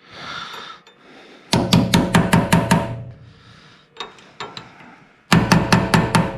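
A hammer tapping a 3/8 six-point socket down onto a rounded brake-line flare nut to make it bite. Two quick runs of about eight metallic taps each, with a ringing after them.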